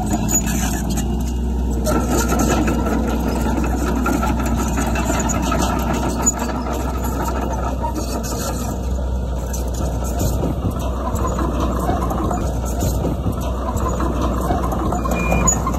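Heavy construction machine's diesel engine running steadily, a constant low drone.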